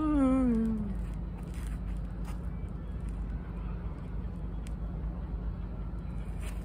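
A man's voice holds a long sung note that wavers and slides down in pitch, ending about a second in. After that only a steady low rumble of city traffic remains.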